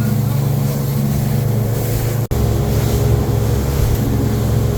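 A boat's motor running steadily under way, with wind buffeting the microphone. The sound cuts out briefly a little over two seconds in, then resumes.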